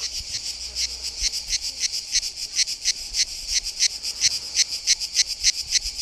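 Cicadas singing: a high-pitched buzz pulsing about five times a second.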